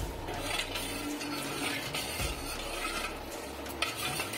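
Steel ladle stirring and scraping in a steel pot of hot milk, with light metal clinks, as sugar is stirred in to dissolve.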